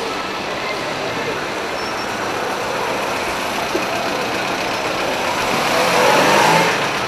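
Steady street traffic noise from running cars, swelling louder for about a second near the end as a vehicle comes close.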